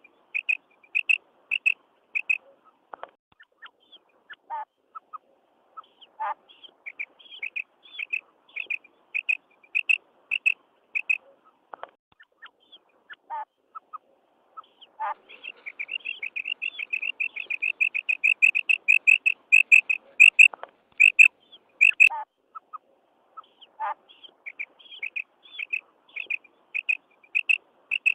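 Female common quail giving its 'kirak' call, the call quail hunters play to lure males. It comes as series of short, high chirping notes in bursts, with a long, fast, loudest run of notes in the middle and a few sharper, lower notes in between.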